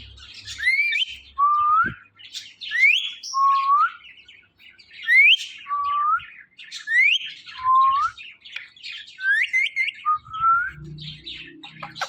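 Pet parrot repeating a two-note call again and again, a high rising whistle followed by a lower rising note, about every second and a half, among harsh squawky chatter.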